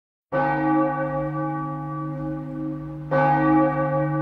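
A large church-type bell tolling, struck twice about three seconds apart, each stroke ringing on with a rich hum of overtones.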